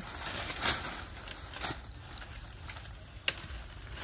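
Handling noises over quiet outdoor background: a few soft rustles and one sharp click about three seconds in, as a rambutan's flesh is pulled out of its split rind.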